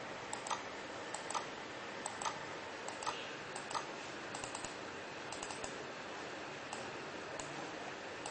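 Irregular light clicks of a computer mouse button, some in quick pairs, as web-page links are clicked to switch LEDs on the microcontroller board, over a steady hiss.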